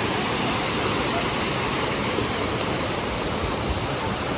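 A waterfall's falling water rushing close by: a steady, even rush.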